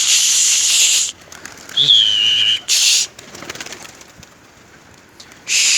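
Domestic pigeons cooing in a loft, broken by three loud bursts of hissing noise, each about a second long.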